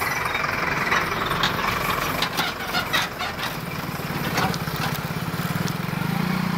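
A motor vehicle engine idling close by: a steady low throb that grows stronger over the last couple of seconds. A few short clicks and knocks come in the first half.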